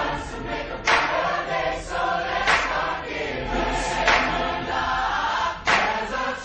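Background music with a choir singing, each new phrase starting with a strong accent about every second and a half.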